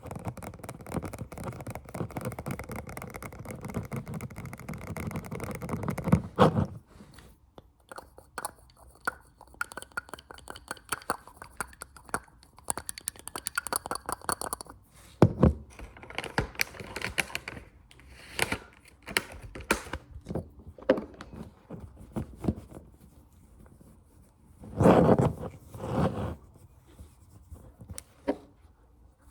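Close-miked ASMR finger tapping and scratching: a dense run of rapid taps, then scattered single taps and short quick runs, with two louder bursts near the end.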